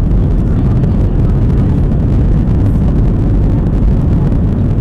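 Boeing 737-700 jet engines running with a loud, steady rumble, heard inside the cabin, with the cabin rattling and knocking as the plane rolls over a bumpy runway.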